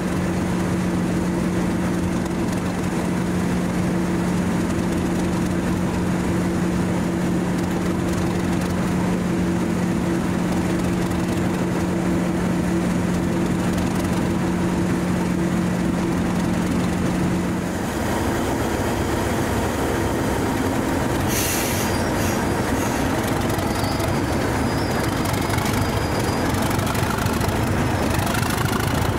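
English Electric Class 37 diesel locomotives idling at a standstill, a steady engine drone with a humming tone that changes about 18 seconds in. A short hiss of air comes about 21 seconds in.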